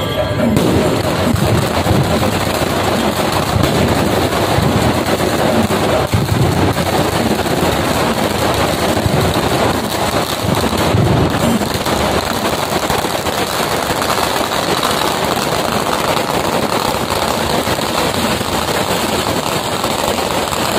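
A string of firecrackers going off in a rapid, unbroken crackle of bangs.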